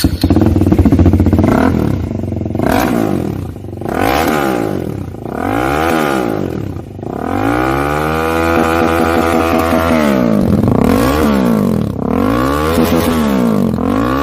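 Single-cylinder motorcycle engine being revved through its exhaust: repeated throttle blips that rise and fall in pitch, with one longer held rev in the middle.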